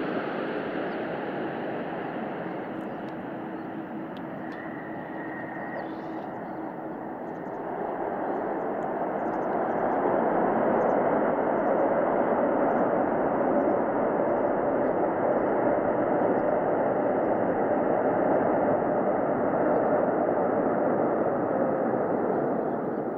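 Boeing 787 jet engines on the landing roll: a steady jet rumble that swells from about eight to ten seconds in as reverse thrust is applied, holds for around ten seconds, then eases off near the end.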